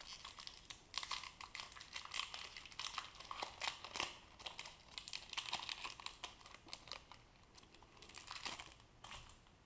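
Foil wrapper of a Pokémon trading card booster pack crinkling as it is torn open by hand: a run of irregular crackles.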